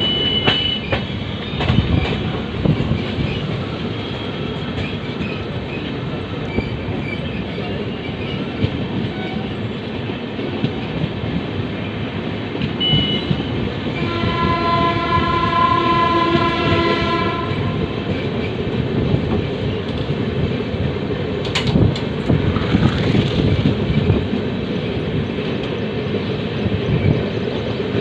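A passenger express train running with a steady rumble of wheels on the track. Near the middle, a train horn sounds one held note for about three and a half seconds.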